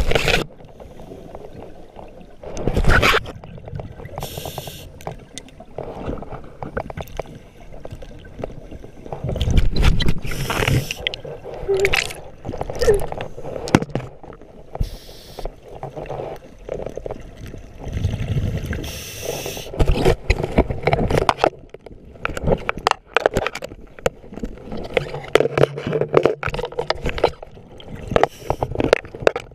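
Scuba diver breathing through a regulator underwater: a hiss on each inhale and a bubbling gurgle of exhaust bubbles on each exhale, repeating every few seconds, with short knocks and scrapes in between.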